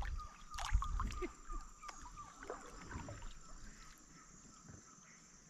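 Kayak paddling: the paddle dips and knocks against the hull with small splashes and water sloshing for the first few seconds, then it goes quiet. Under it, a faint steady high whine of insects.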